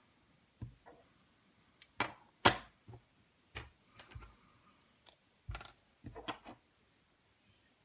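Metal parts of a disassembled folding knife (titanium and steel handle slabs, blade) clicking and knocking as they are handled and set down on a wooden table. About a dozen irregular sharp taps, the loudest about two and a half seconds in.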